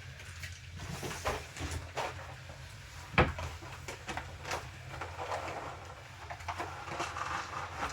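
Light plastic clicks, knocks and rustles of small parts being handled as the receiver box is fitted back onto an RC truck, with one sharper knock about three seconds in, over a steady low hum.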